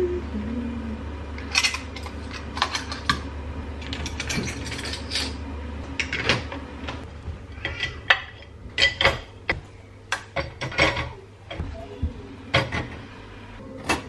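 Dishes and metal spoons knocking and clinking against the wire racks and plastic cutlery basket of a Comfee countertop dishwasher as it is loaded: irregular clatters, some louder than others.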